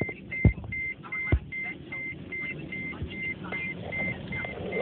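Surf and wind noise with a steady, rapid electronic beeping, about two and a half beeps a second, and two loud thumps about half a second and a second and a half in.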